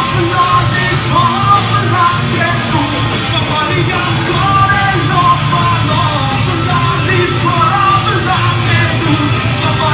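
A rock band playing loud, driving rock music with drums, electric guitars and a shouted, sung vocal.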